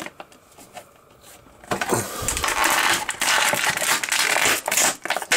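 Clear plastic action-figure packaging being handled and opened: a few light clicks, then from about two seconds in loud, continuous crinkling and rustling as the figure is worked out of its plastic bag.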